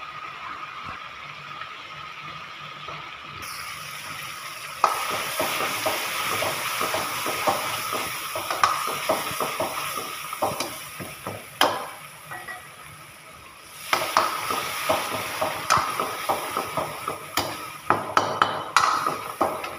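Long metal ladle stirring thick masala in a metal kadhai, scraping and knocking against the pan over and over, over a steady sizzle of frying. The sizzle rises a few seconds in, the stirring starts about five seconds in, and it pauses briefly about two-thirds of the way through.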